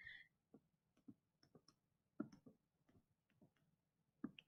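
Faint taps and ticks of a stylus on a tablet screen during handwriting: scattered single taps, with a quicker run of them near the end.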